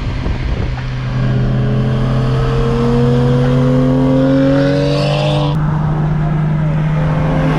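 BMW 335i's N55 turbocharged straight-six pulling under acceleration, its engine note rising steadily for about five seconds over a low steady drone. A brief hiss follows, then the pitch drops about five and a half seconds in and the engine runs on at a steady note.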